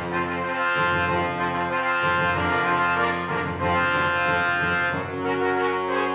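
Background music played by brass instruments, in slow held chords.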